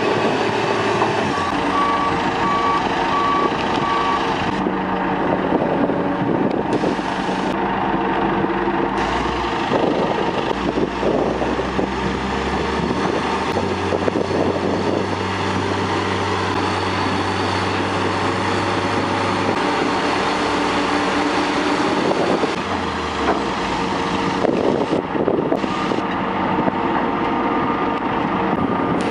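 Heavy construction machinery engines running under varying load, their pitch shifting as they work, with a reversing alarm beeping steadily for the first few seconds.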